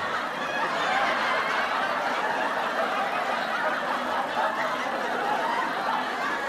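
Laughter following the punchline of a joke, held at an even level.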